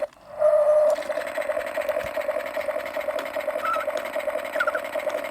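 Toy steering wheel's electronic engine-rumble sound effect through a small speaker, a buzzy steady hum that swells briefly near the start and then pulses on until it cuts off suddenly. The wheel squeaks a couple of times as it is turned.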